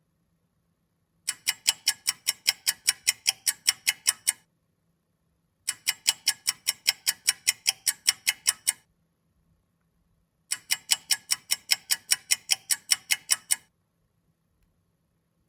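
Clock ticking rapidly, about five sharp metallic ticks a second, in three runs of about three seconds each with short pauses between.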